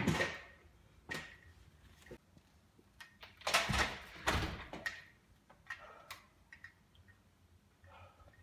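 A house door being handled: a sharp bang right at the start, then scattered knocks and a longer clattering stretch about three and a half to five seconds in.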